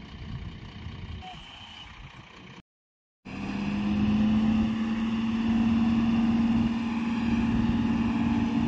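Heavy diesel tipper truck engine running, cutting out completely for half a second about three seconds in, then running louder at steady raised revs with a strong, even drone.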